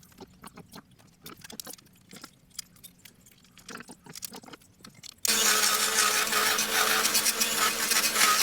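Light clicks and handling taps, then a power tool switches on abruptly about five seconds in and runs loudly and steadily on the plywood workpiece.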